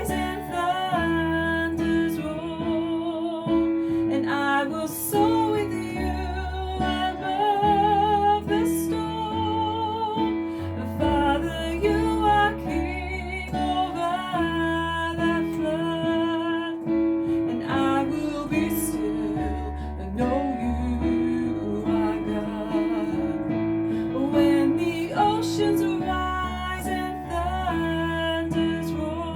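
Worship song: a singing voice over guitar accompaniment and a bass line.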